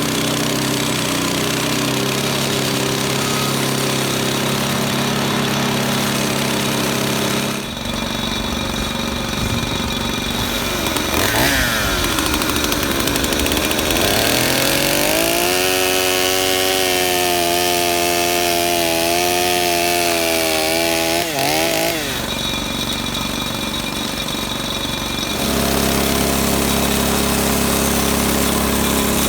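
Frontier OS18 portable bandsaw mill running and sawing a white oak log: a steady engine note, with the pitch dipping and climbing as the blade takes the cut and then holding under load. The sound changes abruptly a few times.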